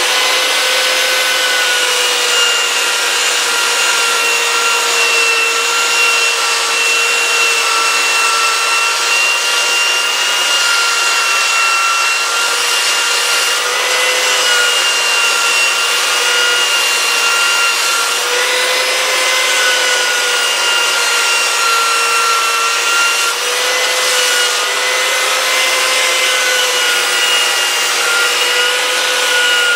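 Skil handheld belt sander with a 50-grit belt running steadily, a motor whine over the rasp of the belt grinding dried ink off a carved wooden sign. The whine wavers slightly now and then as the sander is pressed into the work.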